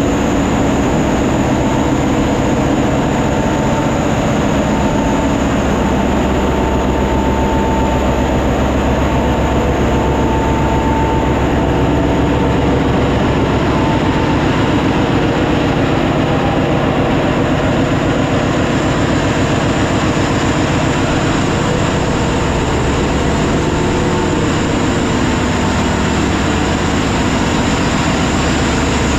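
Ship's engine room machinery running: a loud, steady diesel-engine drone with constant hum tones. A higher whine in the first half fades out partway through.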